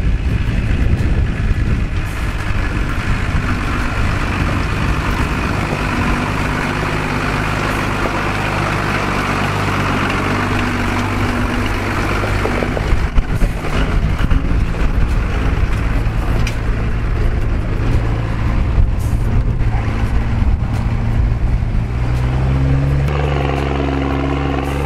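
Chevrolet pickup truck's engine running under load as it crawls up a rocky trail, with the crunch of tyres on rock and gravel and a few sharp knocks about halfway through. Near the end the engine note becomes stronger and steadier.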